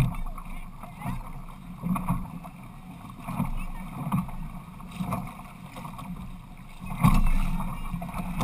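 Water rushing and slapping against the hull of a Hobie Tandem Island sailing trimaran under way, with wind on the microphone. The wash comes in uneven surges and gets clearly louder about seven seconds in.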